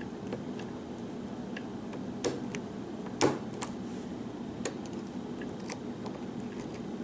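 Lock pick and tension tool working the pins of a challenge lock: scattered small metallic clicks and ticks, irregular, the sharpest about three seconds in.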